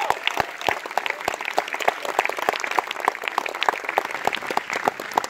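Concert audience applauding after a song ends: many hands clapping, with no music playing.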